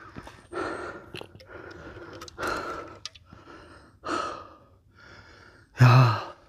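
A man's heavy breathing from exertion in the heat: several loud breaths a second or more apart, then a louder voiced sigh near the end.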